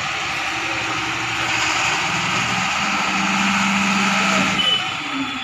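Ashok Leyland tipper truck's diesel engine running while the Hyva hydraulic hoist lifts the dump body. The engine sound grows louder through the middle, then drops about four and a half seconds in.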